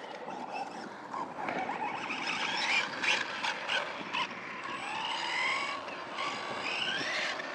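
Brushless electric motor of a Team Corally Syncro 2WD RC buggy whining in rising and falling glides as the throttle is worked, with scattered sharp clicks over a haze of noise.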